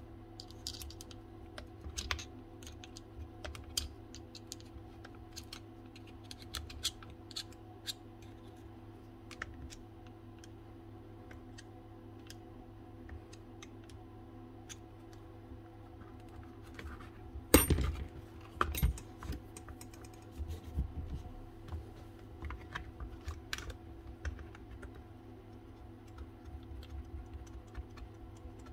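Small clicks, taps and scrapes of a pick tool and fingers on the plastic and metal parts of an opened-up cordless crown stapler, with one sharper knock about two-thirds of the way through, over a steady low hum.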